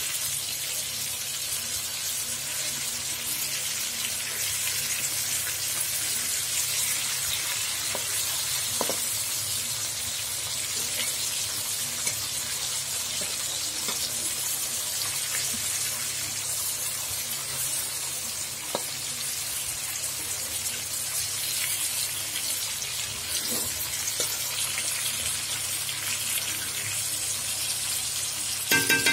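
Fish steaks sizzling steadily as they shallow-fry in hot oil in a wok, with a few light taps and scrapes of a spatula as the pieces are turned.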